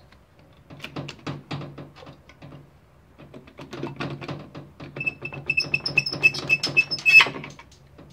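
A motorcycle engine side cover being worked loose by hand and pulled off the crankcase: a run of irregular knocks and clicks as it shifts. Near the end there is a high, pulsing squeal for about two seconds.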